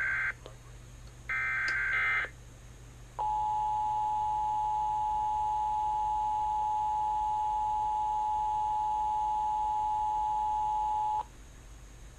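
Emergency Alert System relay: the last two of the three SAME header bursts, each a harsh chirp about a second long, followed by the two-tone EAS attention signal held steady for about eight seconds before it cuts off.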